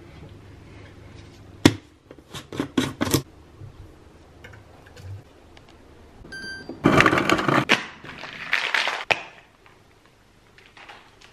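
Plastic protein shaker bottle shaken hard, its liquid sloshing and rattling in two loud bursts about halfway through. Before that, a quick series of sharp plastic clicks and taps as the bottle and its lid are handled.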